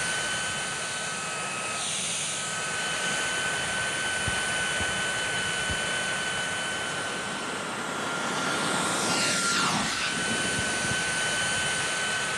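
Small jet engine on a recumbent tricycle running steadily, a high whine over a rushing hiss. About nine seconds in the whine sweeps downward in pitch as the trike goes past.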